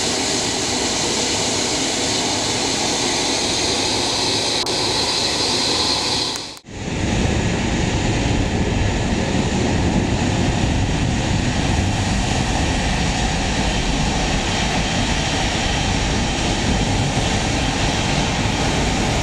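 Jet airliner engines running at taxi. First comes a Boeing 777-300ER's GE90 engines, with a high whine growing stronger. After an abrupt cut about six and a half seconds in, a deeper, steady jet rumble follows from narrowbody Airbus jets taxiing close by.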